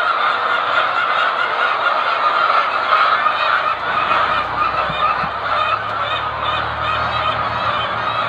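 A dense chorus of many laying hens clucking and calling at once. A low steady hum joins about four seconds in.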